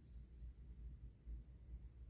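Near silence: a low steady room rumble, with faint high-pitched chirps in the first second.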